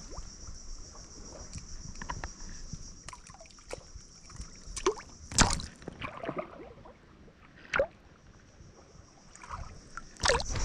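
Water sloshing and splashing in shallow water, with a few short sharp splashes or knocks, the loudest about halfway through, over a steady high-pitched background hiss that fades out near the end.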